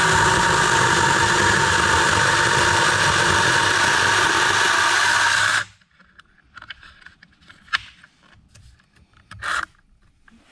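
Mini electric chainsaw running at a steady speed, its motor and chain giving a high, even whine, then stopping abruptly about five and a half seconds in. Faint clicks and handling knocks follow, with one sharper click and a short rattle near the end.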